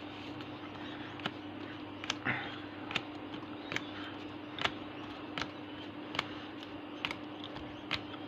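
Trading cards being flipped through one at a time, each card giving a sharp click or snap, evenly spaced at a little over one a second, over a steady low electrical hum.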